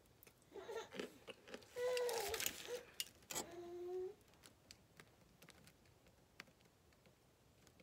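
Compressed cornstarch chunks crunching and squeaking as they are crushed, with a couple of short squeaky squeals in the middle of the crunching. After about four seconds only faint scattered ticks remain.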